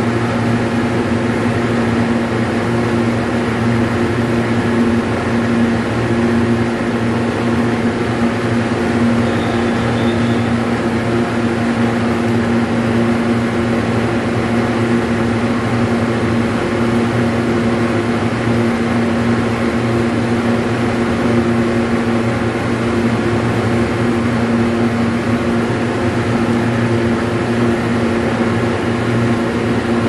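A steady, even machine hum with a low drone and no change in level.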